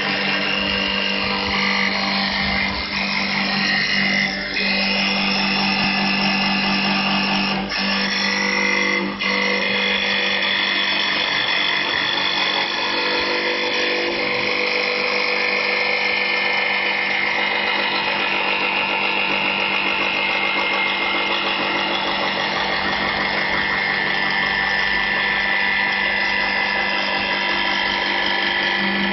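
STYLECNC STL1530 CNC wood lathe running: the spindle spins a wooden stair baluster while the tool cuts its profile, a steady whine of the machine with the hiss of cutting wood. A low hum drops out about four seconds in, and there are a couple of short knocks around eight and nine seconds.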